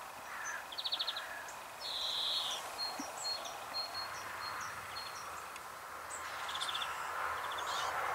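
Small birds chirping, with short fast trills repeating every second or two, over a faint steady background hiss.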